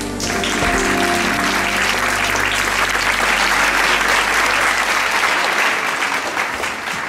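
Audience applauding steadily, the clapping thinning out toward the end. The last held notes of the music die away in the first couple of seconds.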